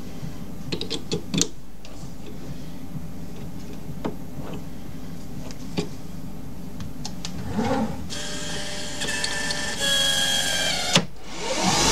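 Hercus PC 200 CNC lathe working through its program between cuts: a steady machine hum with scattered light clicks, then about two-thirds through the axis drives whine in several steady tones as the slides move the tool in. Near the end the spindle starts and its pitch rises as it spins up.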